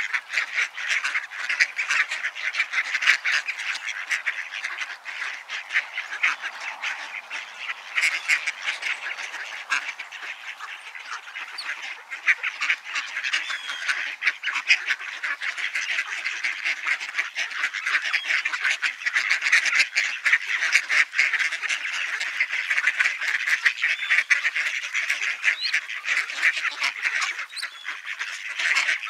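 A large flock of ducks, mostly mallards, calling all at once: a dense, unbroken chatter of overlapping quacks.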